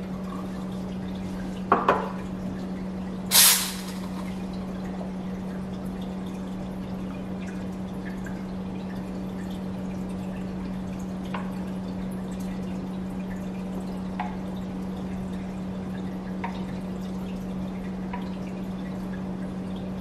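Lelit Bianca dual-boiler espresso machine running, its pump humming steadily while liquid drips. There is a metallic clink about two seconds in and a short, sharp hiss a second later.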